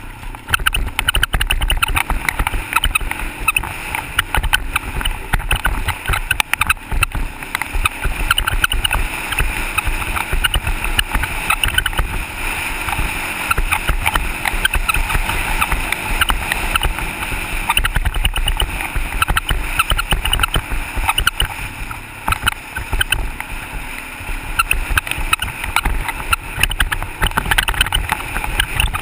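ATV engine running as the quad rides a rough dirt trail, heard through a mounted action camera, with wind buffeting the microphone and frequent short knocks and rattles over the bumps.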